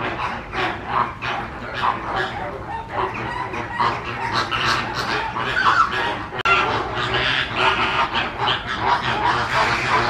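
A dense chorus of many birds calling over one another, short calls following each other without a break.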